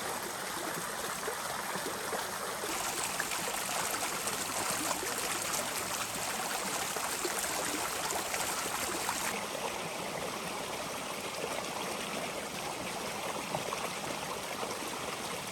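Floodwater rushing steadily in a swollen stream, an even wash of water noise. Its tone shifts abruptly about three seconds in and again about nine seconds in.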